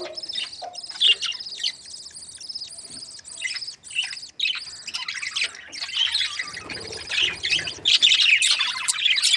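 Budgerigars chirping and warbling together in a steady stream of short, high chirps, growing denser and louder near the end.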